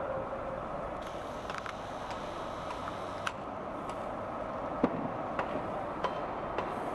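Mobile crane's engine running with a steady drone, with scattered light clicks and one sharper knock about five seconds in.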